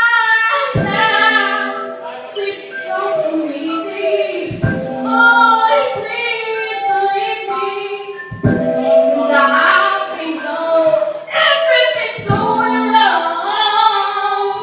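Vocal music: several voices singing together in harmony, with a low thud about every four seconds.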